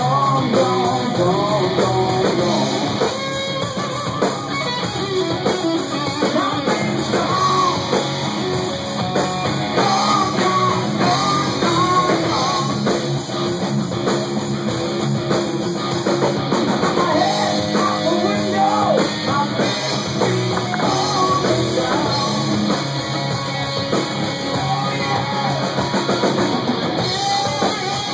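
Live rock band playing: electric guitar through an amplifier and a drum kit, with a man singing.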